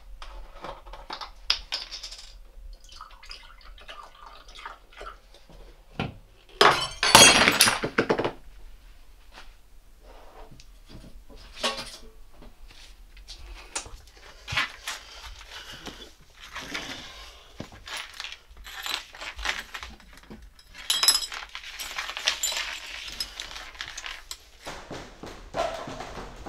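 A drinking glass drops and shatters on a hard tiled floor about six and a half seconds in, the loudest sound, lasting around a second and a half. Scattered light clinks and knocks follow, with a busier patch of clinking near the end.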